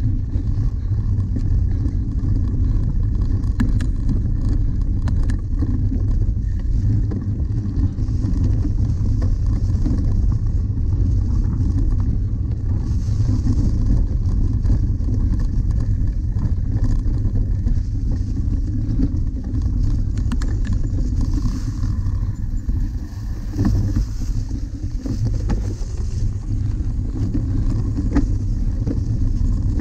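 Steady low wind rumble on the microphone of a camera riding on a cyclocross bike moving over bumpy frozen grass and leaves, with a few faint ticks and rattles from the bike.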